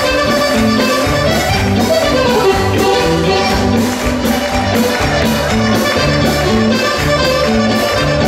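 Organetto (Italian diatonic button accordion) playing a lively, fast folk tune, with a band's drum kit keeping a steady beat underneath.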